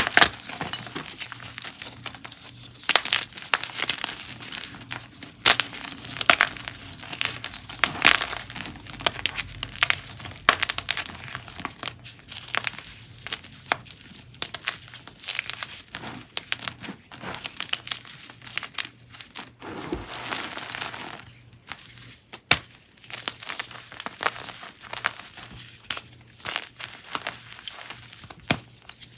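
Gym chalk chunks and blocks being crushed, crumbling with irregular soft crunches and sharp crackles.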